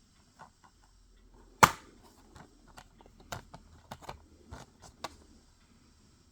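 Plastic Blu-ray cases and packaging being handled: one sharp snap about a second and a half in, then a string of lighter clicks and taps.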